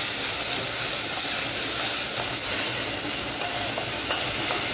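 Diced onion frying in hot oil with mustard seeds, a steady sizzle, while a wooden spatula stirs and scrapes it around an enamelled pot.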